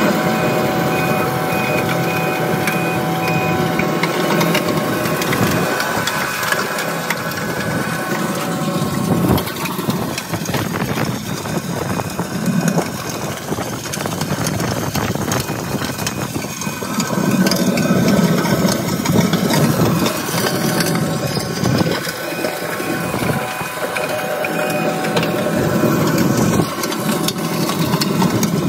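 Diesel engine of a Cat 259D3 compact track loader running under load. Its bucket and tracks crunch and scrape through loose gravel as it grades the surface, with a continual crackle of stones.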